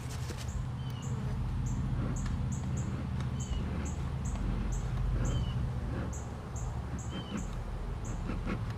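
Steady low hum of honeybees from an opened hive. Short, high bird chirps repeat two to three times a second, with a lower chirp about every second and a half.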